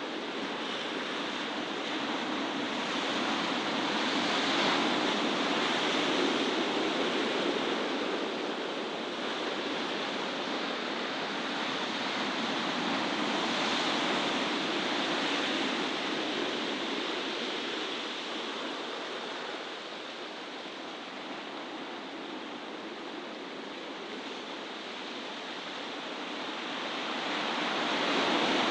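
Steady rushing noise of sea surf and wind, slowly swelling and easing.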